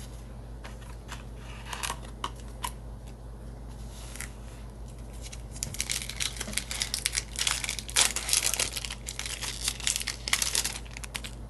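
Foil wrapper of a Yu-Gi-Oh! Ancient Guardians booster pack being torn open and crinkled by hand: a few light rustles at first, then dense crinkling from about halfway through, loudest about two-thirds in.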